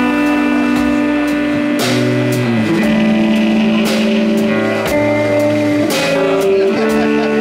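Rock band playing live: electric guitar and electric bass over a drum kit, with cymbal hits through the passage.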